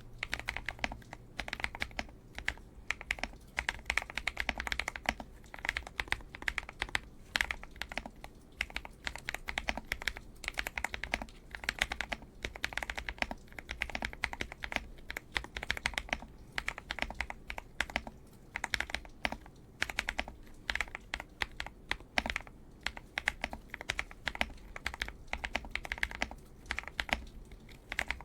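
Typing on a YUNZII AL66 aluminium-case mechanical keyboard: a fast, continuous run of key clicks, several strokes a second, with irregular spacing.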